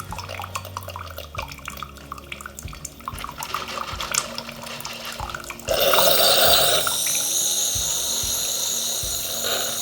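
Bosch Tassimo coffee machine finishing a hot chocolate capsule: liquid trickles and drips into the cup with small clicks. About six seconds in, a sudden loud hissing rush starts and carries on as the cycle ends.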